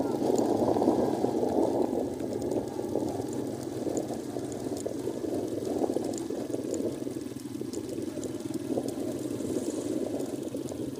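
Motorcycle running as it rides, under a steady rushing noise of wind on the microphone; the rush is a little louder in the first couple of seconds.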